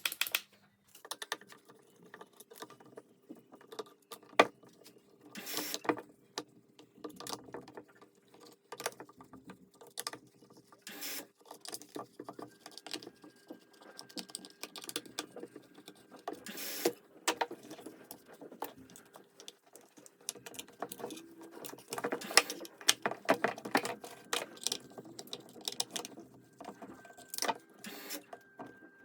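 Irregular clicks, taps and light metallic rattles of small parts and hand tools being handled while an electric demolition hammer is worked on, over a faint steady hum.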